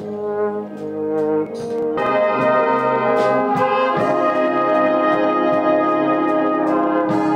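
A wind band of tubas, euphoniums, trombone and saxophones playing sustained chords; the full band comes in louder about two seconds in.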